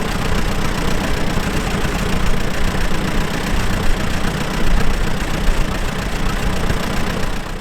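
Tractor engine running steadily, a loud, dense rumble heaviest at the low end.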